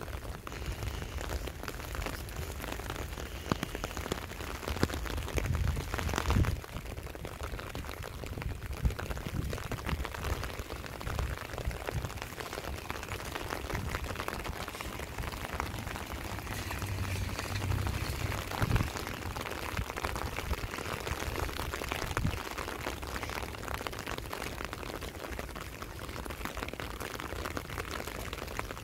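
Steady rain: an even hiss of falling drops over a low, uneven rumble. A few sharp knocks stand out, one about six seconds in and another near nineteen seconds.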